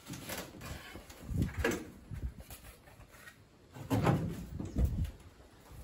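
Irregular clunks and scrapes of an angle grinder being set down and handled on a car's bare steel floor pan, with the grinder not running. The loudest knocks come about a second and a half in and again around four to five seconds in.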